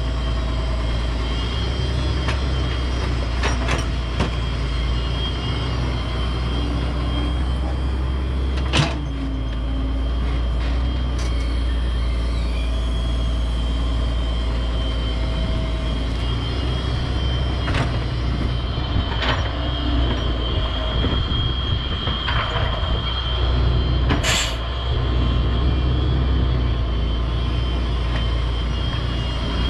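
Hitachi EX125WD wheeled excavator's diesel engine running steadily while it digs and swings mud: a low drone with a faint high whine over it. A few sharp knocks break in, the loudest about nine seconds in and another near 24 seconds.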